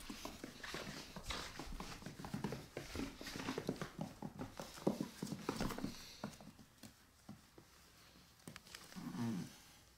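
A puppy's claws clicking and scrabbling on a hardwood floor as it scampers about playing: many quick, uneven clicks and scuffles, busiest over the first six seconds and then sparser. Just after nine seconds comes a brief low vocal sound.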